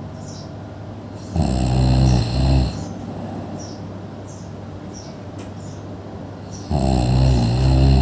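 Snoring: two long, loud snores, one about a second and a half in and another near the end, each with a short break just before it ends.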